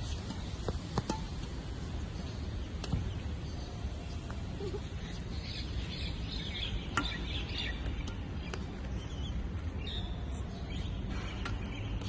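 Badminton racket strokes on a shuttlecock: a few sharp taps, two close together about a second in, another near three seconds and one about seven seconds in. Under them runs a steady low rumble, and small birds chirp from about five seconds in.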